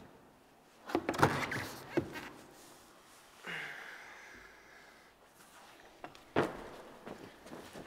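Dull thuds and knocks against a plywood bouldering wall and padded floor: a quick cluster of three about a second in and a single louder thud about six seconds in.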